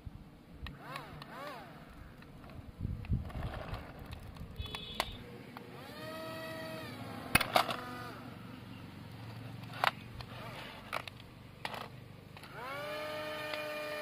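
Small electric motors of a toy RC airplane spinning its propellers in two short bursts, each a whine that rises quickly, holds steady and drops off. The first lasts about a second, midway through, and the second about a second and a half, near the end. Sharp clicks and knocks come in between, the loudest just after the first burst.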